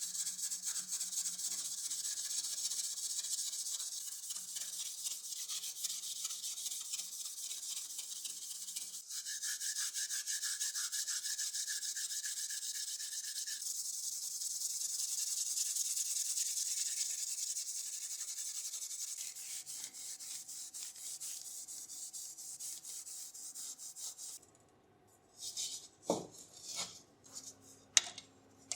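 Fast, steady hand rubbing with an abrasive on a part, a hissy scratching of quick strokes. It stops abruptly near the end, and a few sharp clinks follow.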